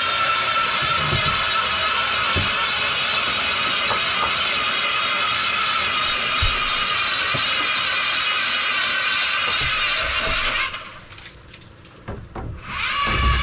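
Power ice auger running steadily as it bores a fishing hole through lake ice, with a few low knocks. The auger stops about eleven seconds in and starts up again shortly before the end.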